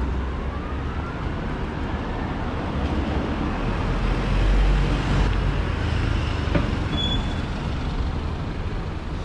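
Road traffic passing along a city street, with London black taxis driving by. It is a steady rumble of engines and tyres that swells to its loudest about four to five seconds in as the cabs pass.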